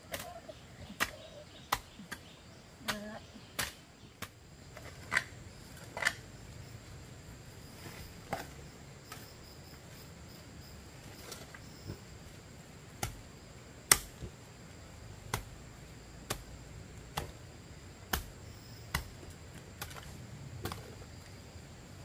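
Sharp knocks at an uneven pace, roughly one a second, the loudest about two thirds of the way through, over a faint steady high-pitched whine.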